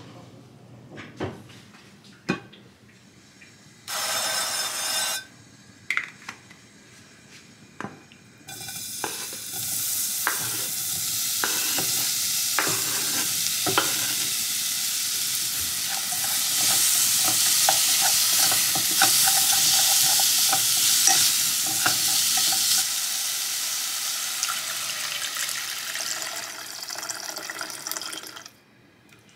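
Tilapia pieces sizzling as they fry in a pot, a loud even hiss that starts about a third of the way in and stops shortly before the end. It is mixed with knocks and scrapes of a knife pushing fish off a wooden cutting board into the pot. A few clicks and a brief loud hiss come before the frying starts.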